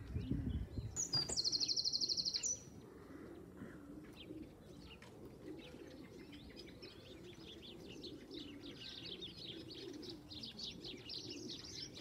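Racing pigeons cooing low and wavering, with small birds chirping high above, the chirping busier near the end. About a second in, a loud, rapid, high trill lasts about a second and a half, just after a low thump.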